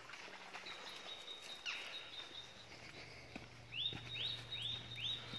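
Songbirds singing in woodland: a high thin note held for several seconds, with a run of four quick upslurred notes about two-thirds of the way in, over a faint low hum.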